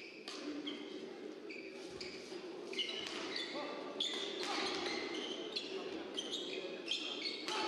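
Players' court shoes squeaking on a badminton court mat as they shuffle into position, many short high chirps, more frequent in the second half, over a steady low hum in a large hall.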